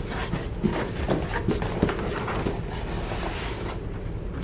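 Cardboard box being handled: a few light knocks, then a brief rustle or scrape a little past halfway.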